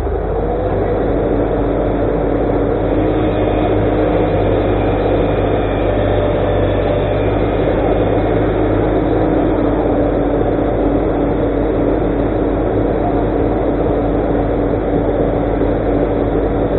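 Excavator's diesel engine and hydraulics running steadily, with a tone that rises briefly about half a second in.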